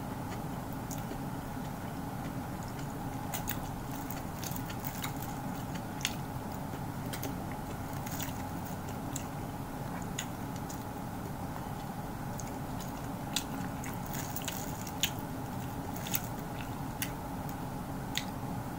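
Close-up sounds of a person eating by hand: chewing, with many scattered sharp smacks and clicks, over a steady background hum.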